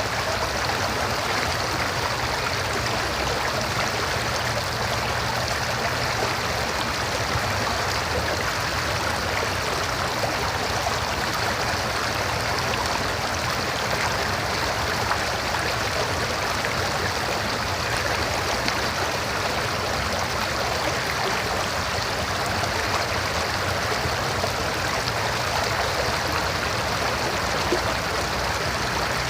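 River water flowing and rushing over rocks, a steady, even rush.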